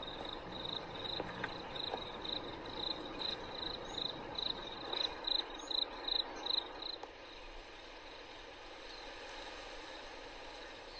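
A cricket chirping in an even rhythm, about three high chirps a second, growing louder and then stopping abruptly about seven seconds in, leaving a faint steady outdoor background.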